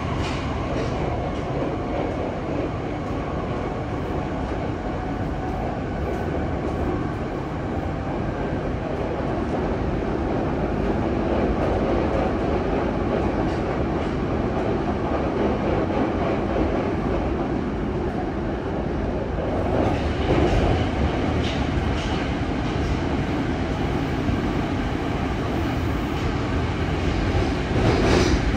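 Running noise heard inside a Yokohama Municipal Subway 3000R-series car with Mitsubishi IGBT-VVVF drive, travelling at speed: a steady rolling rumble of wheels on rail. Sharp clacks over rail joints come about twenty seconds in and again near the end.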